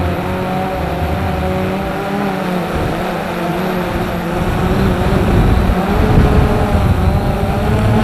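Strong wind buffeting the microphone, with a rough low rumble that grows louder about five seconds in. Under it runs a steady droning hum of several tones.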